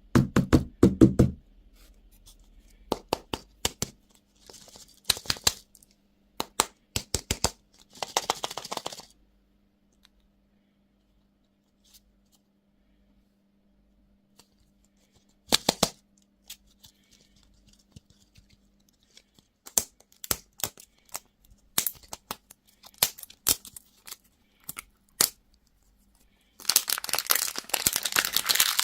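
Close-up handling of candy and toy packaging: sharp plastic clicks and taps, with short bursts of wrapper tearing and crinkling, a longer burst near the end.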